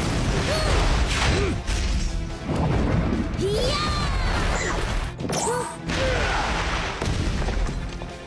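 Action sound effects from an animated superhero battle: crashes and booms of blasts and impacts, with several effects that swoop up and then down in pitch, over a music score.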